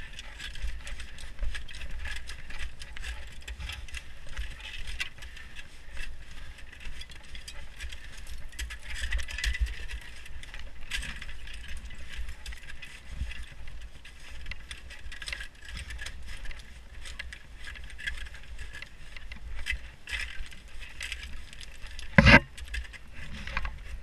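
Climbing hardware on a harness jingling and clinking as the climber rappels down an ice face, over a steady low rumble. One sharp knock near the end.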